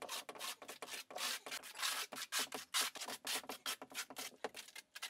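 Trowel scraping thinset into the waffle pattern of a shower pan in a quick series of short strokes, about three a second.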